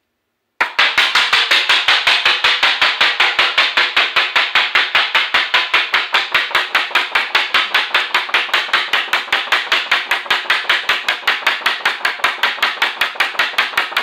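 A sheet of cardstock held into a spinning five-bladed ceiling fan, the blades slapping its edge in a fast, even rhythm of about six strikes a second, starting about half a second in. Each slap is one blade passing, with the fan up to speed on its slowest setting.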